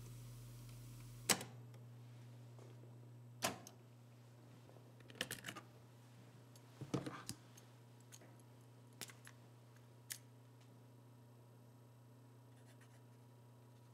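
Faint handling of a cassette tape and a pen: a sharp plastic click about a second in, then scattered clicks and clacks that thin out after about ten seconds, over a low steady hum.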